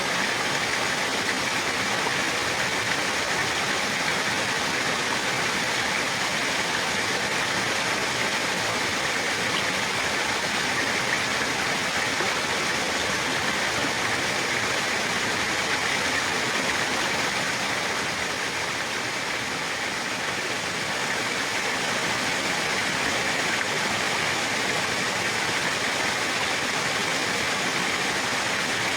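Running water, steady rushing flow like a stream or small cascade, dipping slightly for a few seconds past the middle.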